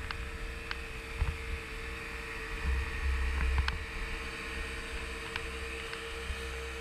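Twin Yamaha Enduro 75 two-stroke outboard motors running at speed, a steady hum over a low rumble.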